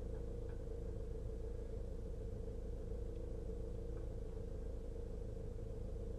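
Steady low engine rumble and hum heard from inside a vehicle cab, holding an even pitch throughout.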